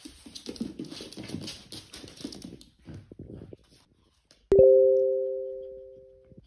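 A French bulldog and a Yorkshire terrier scuffling and growling over a plush toy for the first two to three seconds. About four and a half seconds in, a single chime strikes, two notes ringing together and fading out over about two seconds; it is the loudest sound.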